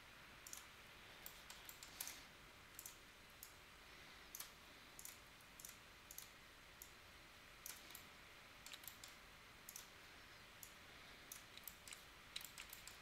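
Faint, irregular clicks of a computer mouse, some in quick runs, over a low steady hiss.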